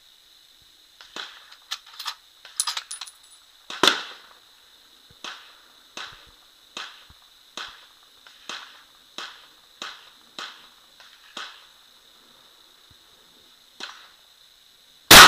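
A series of short sharp clicks and ticks, then near the end a single very loud shot from a Tikka T3 Battue bolt-action rifle in .30-06, ringing on afterwards.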